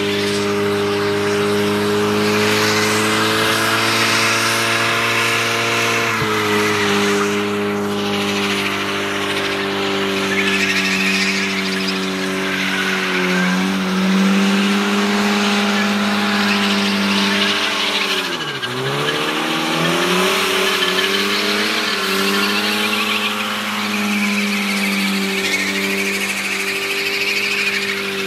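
Car drifting: the engine is held at steady high revs with tyre squeal over it. The revs drop sharply and climb back about two-thirds of the way through.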